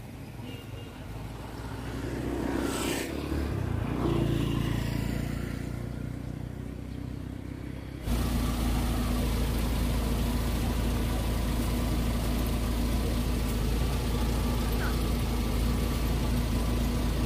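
A motor vehicle engine approaching and passing, rising and then falling. After an abrupt cut about 8 seconds in, a steady, louder engine drone continues.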